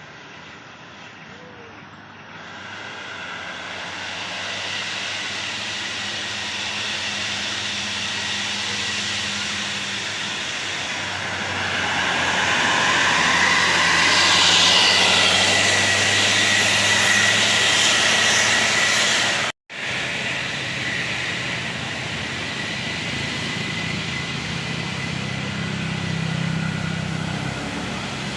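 Large bus engine and road noise growing louder as the bus draws near and passes close, peaking about halfway through. After a sudden break, a steady, lower engine hum.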